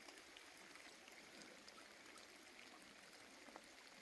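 Very faint, steady running-water hiss of a small forest creek, with scattered light ticks.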